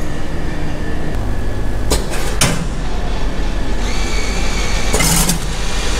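Popiah vending machine running with a steady low hum, two sharp clunks about two seconds in, then a mechanism whirring from about four seconds with a short rattle around five seconds, as it heats and dispenses a spring roll.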